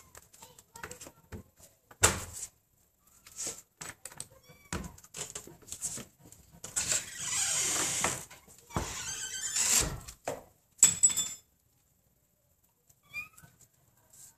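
Cat licking at and pawing a plastic yogurt cup on cardboard: irregular small clicks and taps, with longer scraping rustles of the plastic in the middle and a couple of sharper knocks.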